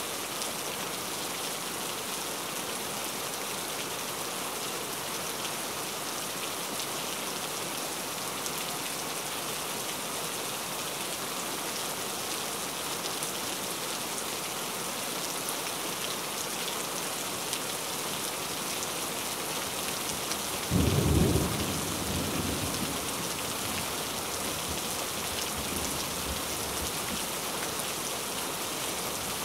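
Steady heavy rain. About twenty seconds in comes a sudden clap of thunder, the loudest sound, followed by a low rumble that dies away over several seconds.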